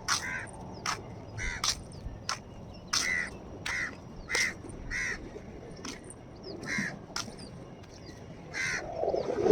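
Crows cawing: a run of short caws, about one or two a second, with a few pauses. Near the end a louder low noise rises underneath.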